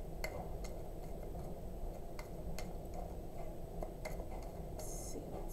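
Tarot cards being handled: a few scattered light clicks at irregular intervals, and a short papery swish near the end, over a low steady room hum.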